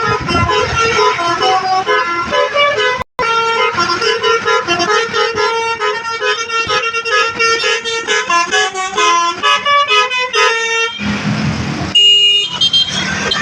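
Basuri telolet multi-tone bus horn playing a quick stepping melody of several notes at once. The sound drops out for an instant about three seconds in. Near the end the tune breaks off for a second of engine and road noise before the horn notes come back.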